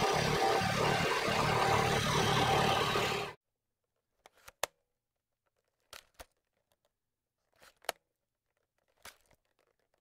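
Scroll saw running, its fine blade cutting through a carved wooden panel; the noise cuts off abruptly about a third of the way in. After that there is near silence with a few faint, sharp clicks.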